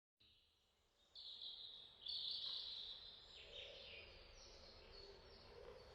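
Faint outdoor nature ambience: high-pitched chirping calls starting about a second in, louder for a stretch from about two seconds.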